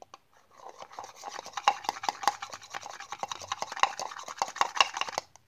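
A utensil stirring and scraping around inside a plastic cup of hand-sanitizer slime: a continuous rasping scrape with many quick clicks against the cup's sides. It starts about half a second in and stops just before the end.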